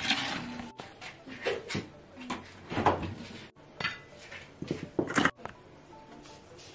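Kitchenware clattering: a metal baking tray shifted on a wire rack and a serving spoon knocking and scraping in a steel pot of rice, in a string of short knocks and clatters, the loudest about three and five seconds in.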